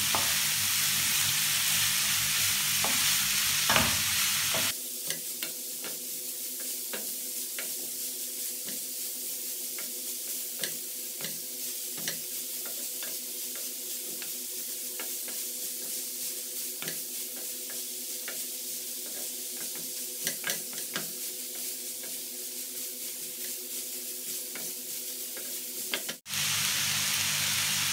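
Julienned carrots and green beans sizzling in oil in a ceramic-coated frying pan while a wooden spatula stirs them, knocking and scraping against the pan in frequent short strokes. The vegetables are being sautéed briefly, only half-cooked so they stay crunchy. The sizzle drops quieter about five seconds in.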